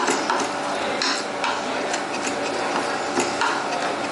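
Kitchen knife chopping cooked mutton on a wooden cutting board: quick, irregular chops, several a second, over steady background noise.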